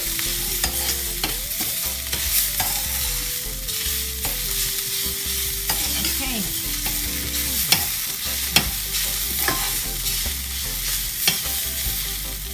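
Ginger-garlic paste and browned onions frying in a pan with a steady sizzle, while a spoon stirs and scrapes the bottom and knocks against the pan with sharp clicks now and then.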